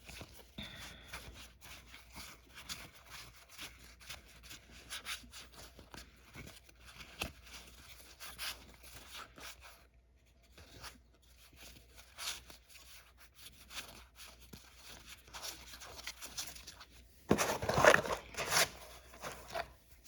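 Trading cards being handled and flipped through, a run of soft clicks and rustles, with a louder rustle near the end.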